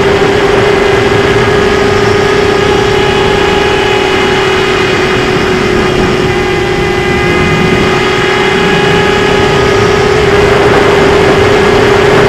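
Eachine Tyro 129 FPV racing quadcopter in flight, its brushless motors and propellers heard from the onboard camera as a steady hum and whine over rushing air noise.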